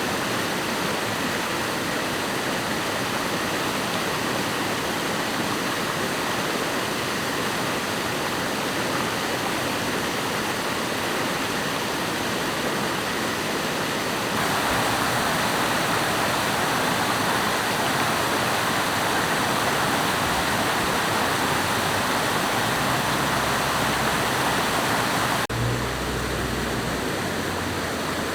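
Rushing water, a steady hiss with no pitch. It gets louder abruptly about halfway through and drops back suddenly near the end.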